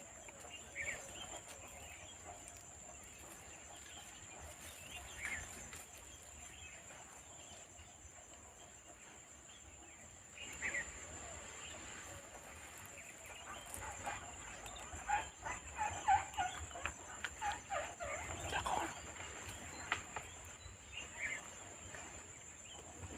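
Jungle ambience: short scattered bird calls, busiest in the second half, over a steady high-pitched insect drone.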